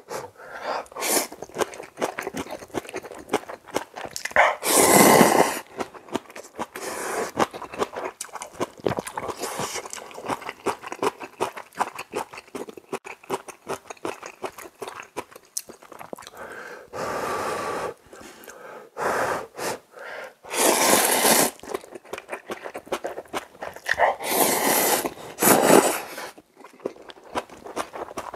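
A person eating kimchi cup ramen: about five long noodle slurps, with chewing and small clicks of chopsticks against the cup in between.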